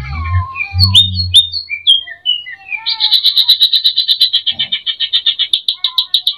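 Cucak ijo (leafbird) singing: a run of varied whistled notes and pitch slides, then from about three seconds in a fast, even rattling trill of roughly seven or eight notes a second. A low hum sits under the first two seconds.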